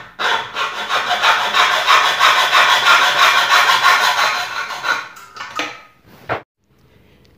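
Hand hacksaw cutting through a spoon handle held in a bench vise: quick back-and-forth rasping strokes for about five seconds. A few short last strokes follow before it stops.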